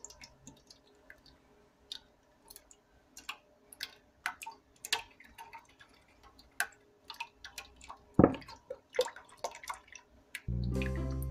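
Sponge-cake batter dripping and plopping off a stopped stand-mixer balloon whisk into the steel bowl, soft irregular drips. About ten seconds in, a steady mechanical hum starts.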